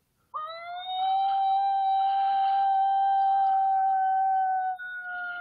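A single long coyote lone howl: it swoops up at the start and holds one steady pitch for about four seconds, then drops a little and carries on fainter.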